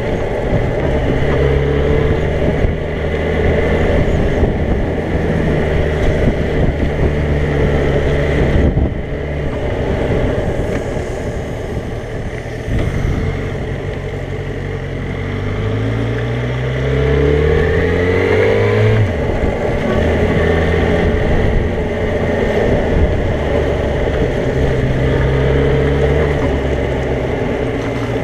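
Motorcycle engine running under way at moderate revs. The revs rise twice, near the start and at about 16 to 19 seconds in, and drop back at each gear change.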